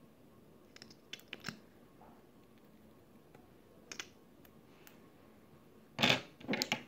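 Slime being squeezed and worked by hand, making scattered sticky clicks and pops, with the loudest cluster of squelching snaps near the end.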